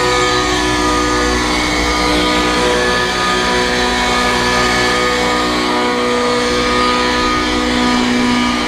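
An engine running steadily at a constant speed, its pitch holding level throughout.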